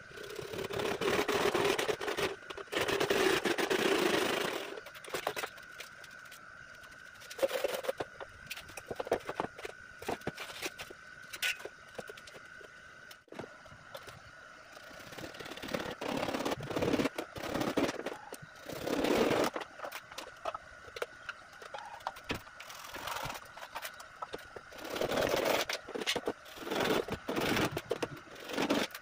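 Hand saw cutting PVC pipe in rasping strokes for the first few seconds. After that come scattered knocks and scrapes as plastic pipe sections and PVC fittings are handled and pushed together, with a faint steady high whine underneath.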